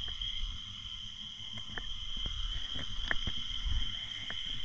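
Underwater sound picked up through an underwater camera: a steady high whine over a low rumble, with scattered faint clicks.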